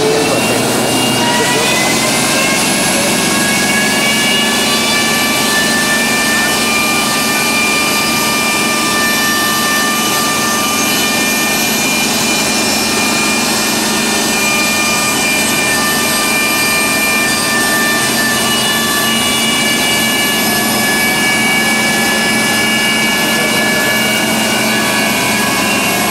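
Jet engine of a TF-104G Starfighter running at idle on the ground: a steady turbine whine of several high tones over a broad rush, settling just after it begins and then holding, with one high tone slowly rising.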